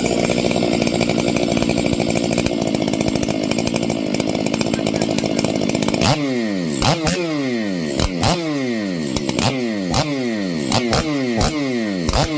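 Stihl MS 500i fuel-injected two-stroke chainsaw running after its no-start problem has been fixed. It is held at steady high revs for about six seconds, then blipped repeatedly, about twice a second, the revs falling back after each blip.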